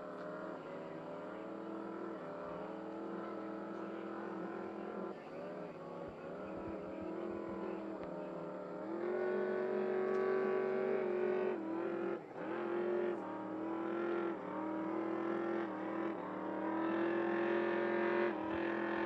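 Six-litre race boat's engine running at speed, heard from a distance; its pitch shifts up and down several times as the throttle changes, stepping up about nine seconds in.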